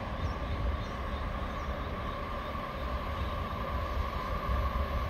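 Diesel locomotive approaching from a distance: a steady low engine rumble with a steady high-pitched whine over it, growing a little louder near the end.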